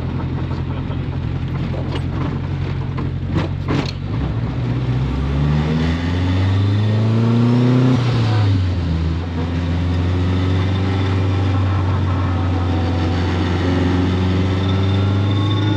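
Car engine running steadily, revved up once over about two seconds and let back down, then running steadily again.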